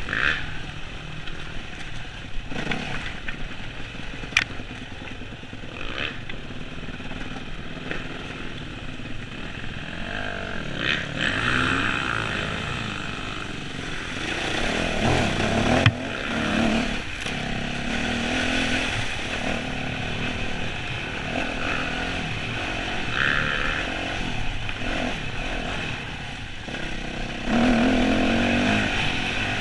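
Enduro dirt bike engine running and revving under load over a rough, stony track, heard from the rider's helmet camera, with a few sharp knocks in the first several seconds. About halfway through it gets louder as the bike rides through standing water on the track.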